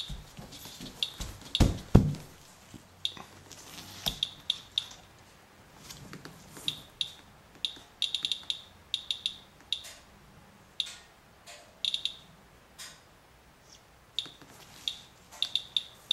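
Radalert Inspector Geiger counter chirping irregularly, one short high chirp per detected count, sometimes several in quick succession, as it measures a rain-wipe sample. A few handling thumps about two seconds in.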